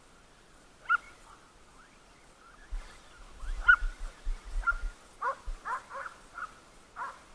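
A dog giving a string of about ten short, high, whining yips, each falling in pitch, starting about a second in and coming faster in the second half.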